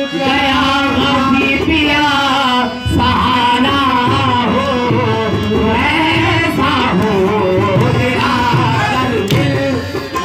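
Qawwali music: sung devotional vocals over accompaniment, with hand-drum strokes in a steady rhythm starting about three seconds in.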